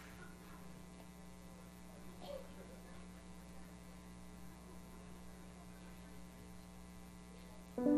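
Steady electrical mains hum with faint room noise underneath. Piano music comes in suddenly right at the end.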